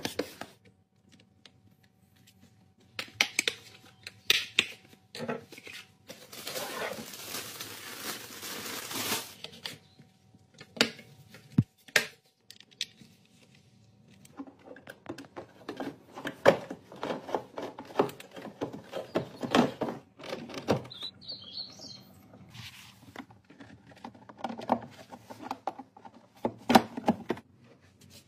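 Hands working on car parts: scattered plastic clicks, knocks and rustling as an air filter element and plastic covers are handled and a screwdriver is turned. A steady hiss runs for about three seconds, starting about six seconds in.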